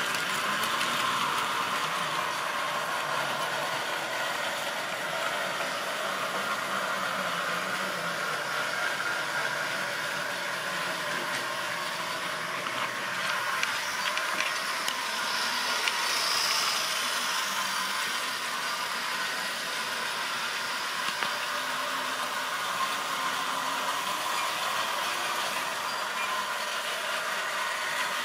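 Model railway goods train running on its track: the steady running noise of the locomotive and wagon wheels on the rails, with a few sharp clicks along the way.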